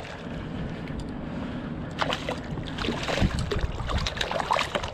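A hooked smallmouth bass splashing and thrashing at the water's surface beside a kayak as it is reeled in, over steady wind and lapping water. A rapid run of splashes starts about two seconds in.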